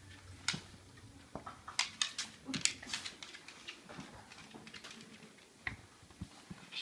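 Scattered sharp clicks and taps from a beagle and a Bengal kitten scuffling, busiest about two to three seconds in.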